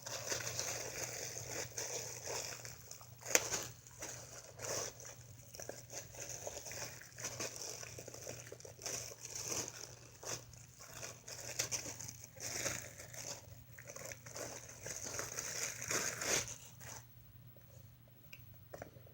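Plastic wrapper crinkling and rustling as it is handled and pulled off a mask, in irregular crackles with one sharp crackle a few seconds in. It stops about two seconds before the end.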